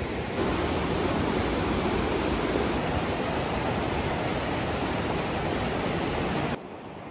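Mountain river rushing over rocky rapids: a steady wash of water noise that gets louder about half a second in and falls away abruptly near the end.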